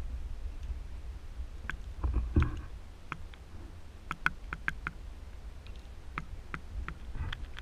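Underwater sound through a GoPro's waterproof housing: a steady muffled low rumble, a louder knock with a short scrape about two seconds in, then a scattered run of sharp clicks, several a second.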